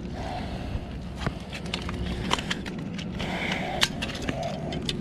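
Landing net and a large starry flounder being lifted onto and handled on a concrete breakwater: scattered knocks, taps and scrapes, two sharper knocks standing out after about two seconds and near four seconds, over a steady low hum.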